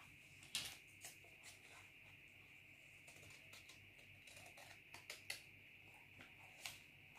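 Near silence with a few soft rustles and light taps of paper pattern pieces being handled and laid down, over a steady faint high hiss.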